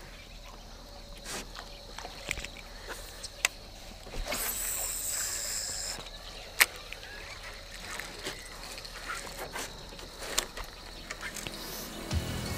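Baitcasting reel spool whirring for about two seconds as a swimbait is cast, among scattered light clicks and knocks of rod and tackle handling. Music comes in near the end.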